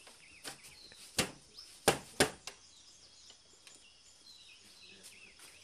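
Sharp wooden knocks from a hand loom as the weaver works its wooden bars and beats the weft in, about five strikes with the three loudest close together between one and two and a half seconds in. Faint bird chirps carry on behind.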